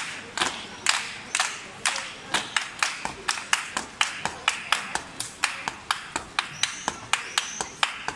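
Flamenco palmas: a group of dancers clapping their hands in unison in a steady rhythm, about two claps a second at first, then doubling to about four a second a couple of seconds in.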